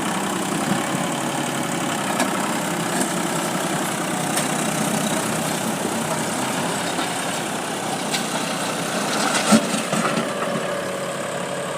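Heavy diesel engine running steadily at idle, with a few light clanks and one louder knock about nine and a half seconds in.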